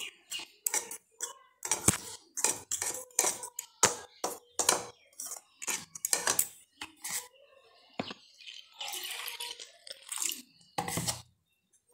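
A metal spoon stirs dry flour and spices in a ceramic bowl, clinking and scraping against the bowl's side about twice a second. Near the end, water pours into the bowl.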